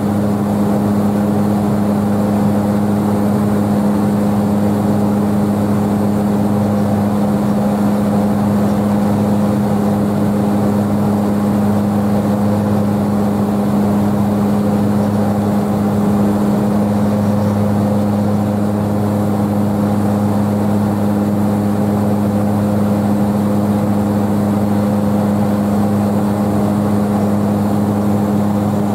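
Airplane engines droning steadily in flight, heard from inside the passenger cabin: a constant loud low hum with no change in pitch.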